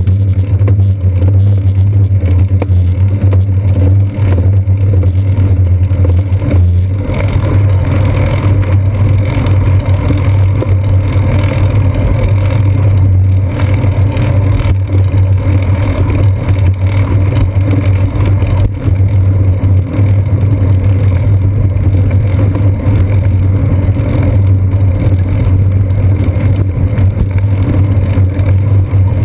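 Steady low rumble from a bicycle being ridden along a paved road, road vibration and wind picked up by a GoPro Hero 2 mounted on the seat post.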